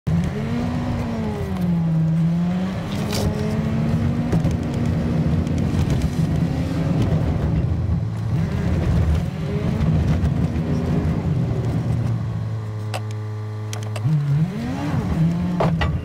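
Vehicle engine running while driving, its pitch rising and falling repeatedly with the revs. It holds steady for about a second and a half near the end, then revs up sharply.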